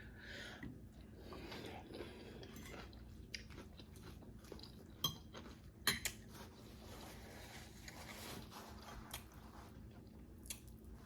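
Faint chewing of food, with scattered short clicks and clinks of cutlery against a plate; the sharpest click comes about six seconds in.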